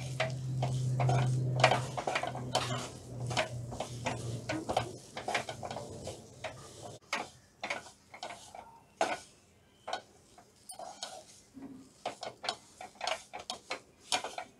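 Wooden spatula stirring and scraping a thick jaggery and rice-flour dough around a nonstick pan, in irregular knocks and scrapes as the flour is worked into the syrup. A low steady hum runs under the first five seconds.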